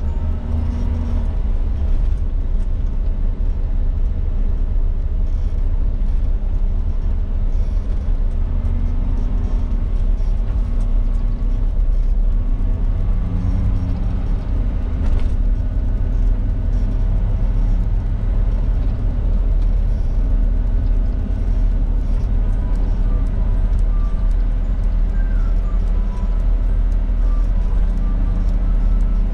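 In-cabin sound of a Suzuki Jimny JA22 being driven: a steady low rumble from its small three-cylinder turbo engine and the road.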